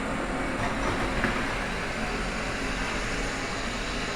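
Roomba robot vacuum running, a steady motor and brush whir.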